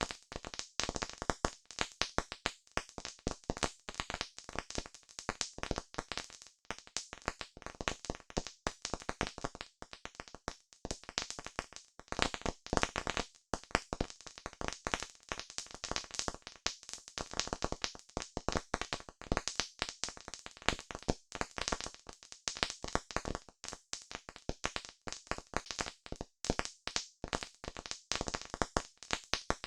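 Campfire crackling: burning wood giving off dense, irregular pops and snaps, several a second, at a steady level.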